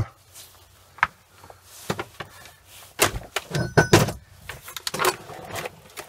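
Irregular knocks and short scrapes of an iron block and tools being handled on a metal workbench, busiest in the second half.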